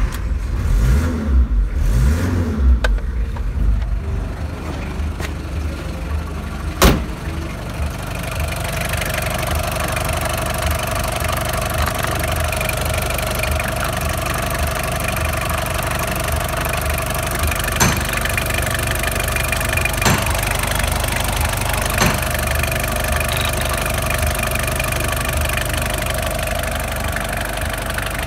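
VW T4's 1.9 four-cylinder turbo-diesel just after a start, running unevenly for the first few seconds and then settling into a steady idle with diesel clatter. A single sharp knock sounds about seven seconds in, with a few fainter clicks later.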